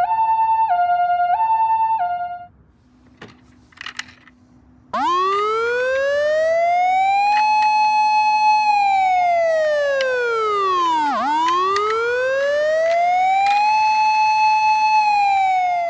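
Ambulance siren: a two-tone hi-lo "pee-po" alternating about once every two-thirds of a second, stopping after about two and a half seconds. After a short pause with a few faint clicks, a wailing siren starts about five seconds in, slowly rising, holding high, sweeping down low and rising again to hold.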